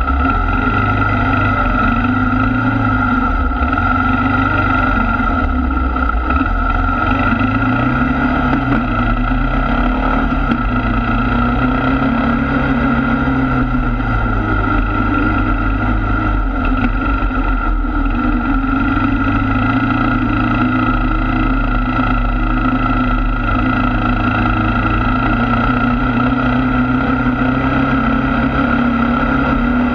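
ATV engine running under way, its pitch rising and falling with the throttle.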